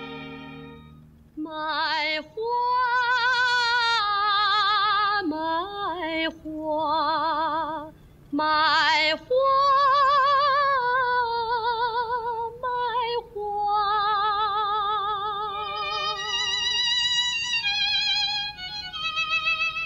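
A woman singing long, high notes with strong vibrato in an operatic style, phrase after phrase with short breaths between. A soft orchestral string passage fades out in the first second.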